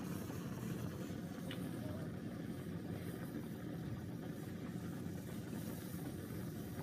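Steady rumbling hiss of a Bunsen burner flame heating a glass flask of boiling water, with steam jetting from a bent glass tube.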